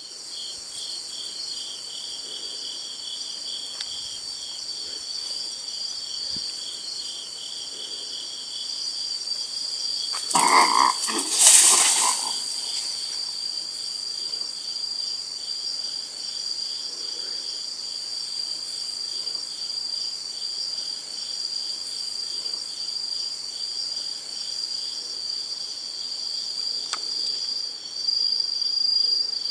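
Night chorus of crickets and other insects: a steady high trill with a second song pulsing a few times a second just below it. About ten seconds in, a loud noisy rustle or scuffle lasts about two seconds.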